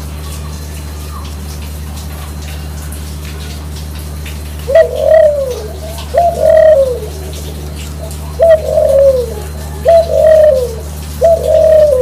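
Caged Barbary doves (puter) cooing: five two-part coos in the second half, each a short note followed by a longer note that falls in pitch. A steady low hum runs beneath.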